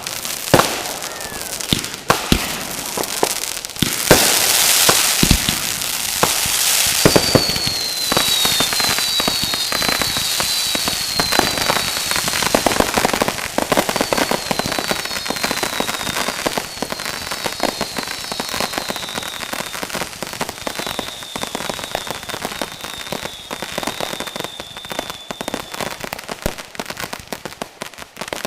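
Fireworks going off: dense crackling and sharp bangs, loudest about four seconds in. A run of short whistles that slide down in pitch follows, then a longer, steadier whistle.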